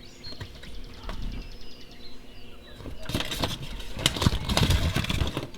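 Plastic and paper toy packaging being handled and crinkled, with small taps and clicks. It grows busier and louder about halfway through.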